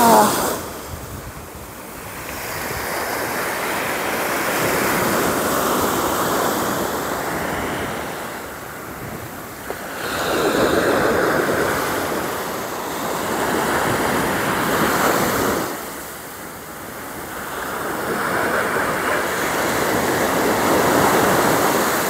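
Sea waves breaking and washing up a sand beach, the surf rising and falling in about four slow surges, with wind buffeting the microphone.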